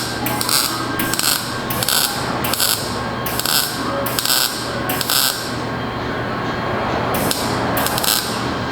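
Lincoln welder stitch-welding sheet-metal Mustang body panels: short bursts of crackling arc, roughly two a second, with a brief pause a little past the middle before the bursts resume.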